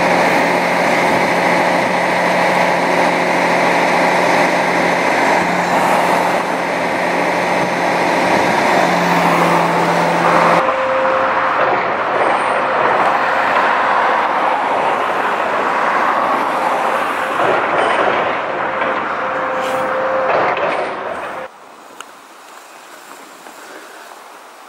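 Aerial lift truck's engine running steadily with a low hum, its pitch stepping down slightly about nine seconds in. Partway through, the hum gives way to a steady rushing noise, which drops to a faint background near the end.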